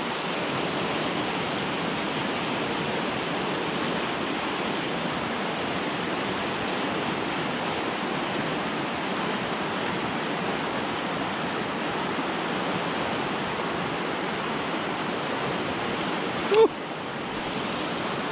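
Steady rushing of a mountain creek in flood, high fast water running over rocks. Near the end there is one brief sharp sound, after which the water sounds quieter.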